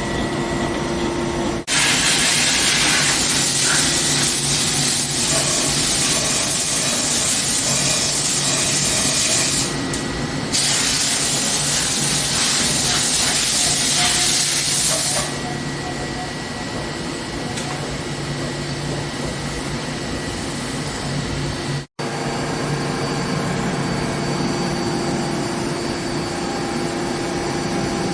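CNC machine tool running with a steady hum and a few constant tones. A loud spraying hiss cuts in suddenly about two seconds in, breaks off briefly near ten seconds, and stops about fifteen seconds in.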